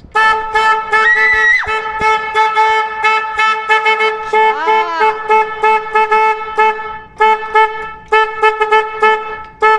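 A side-by-side's newly wired horn sounding loudly, one steady tone held almost without a pause, cutting out briefly twice near the end. A voice yells over it a couple of times.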